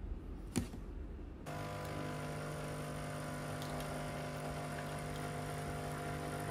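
Nescafé Dolce Gusto Genio S capsule coffee machine brewing into a ceramic mug, its pump running with a steady, even hum that starts suddenly about a second and a half in. Before that, a short sharp tap from the ceramic mug being handled.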